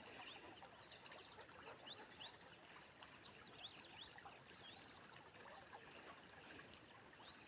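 Faint, steady rush of the Inhul river, with small birds chirping in many short quick calls over it.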